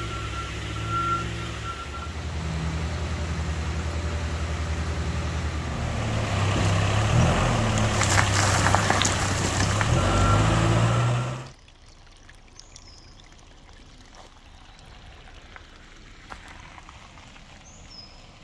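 Backhoe loader's diesel engine running steadily as it works, with a backup alarm beeping briefly near the start and again about ten seconds in, and clattering as the bucket handles dirt and rocks around eight to nine seconds. About eleven seconds in it cuts to a much quieter stretch of shallow water running over a gravel road, with a faint bird chirp or two.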